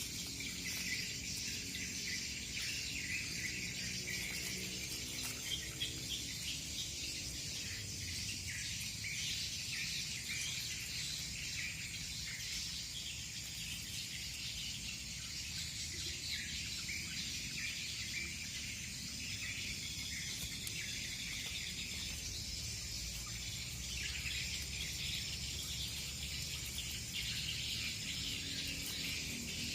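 Outdoor ambience of insects chirring steadily, crickets among them, with birds chirping over it.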